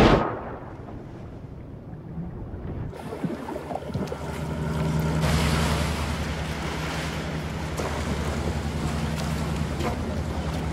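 A boat engine running steadily, with wind on the microphone and the wash of waves. The first few seconds are muffled, as heard underwater.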